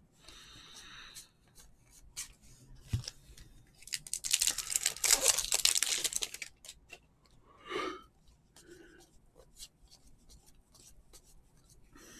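A foil trading-card pack being torn open and its wrapper crinkled, loudest for about two and a half seconds in the middle, with scattered light clicks around it.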